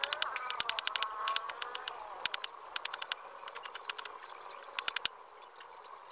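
Kitchen knife slicing a red onion against a banana leaf: runs of quick small taps, several a second, in short bursts with pauses between.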